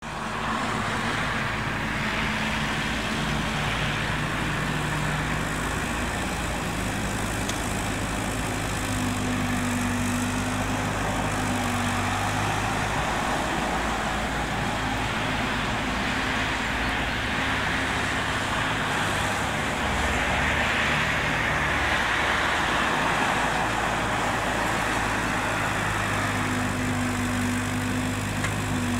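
Bobcat 331 mini excavator's diesel engine running steadily as it digs, its note stepping up and down in pitch every few seconds as the hydraulics load it, over a steady hiss of road traffic.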